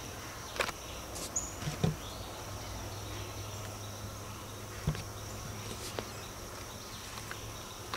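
Steady high-pitched insect drone in woodland over a low hum, with a few faint clicks scattered through.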